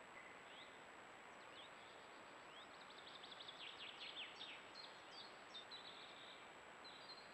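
Faint birdsong: scattered chirps, then a quick run of sliding notes about three to four and a half seconds in, with a few more short calls after. Under it runs the steady hiss of a trail camera's microphone with a faint high whine.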